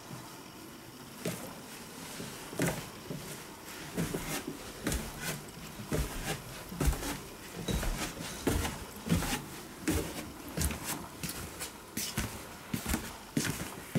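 Footsteps in slippers going down wooden stairs: a run of irregular soft knocks and taps.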